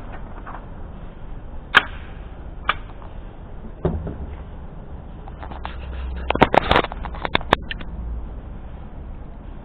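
A few sharp clicks and knocks over a steady low rumble, with a quick run of clicks about two-thirds of the way through.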